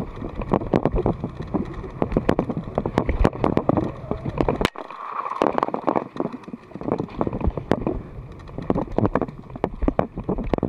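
Mountain bike clattering down a rough dirt trail, heard from an action camera mounted on the rider: a dense, irregular run of rattles and knocks from the bike over rumbling ground noise, cutting out briefly just under halfway through.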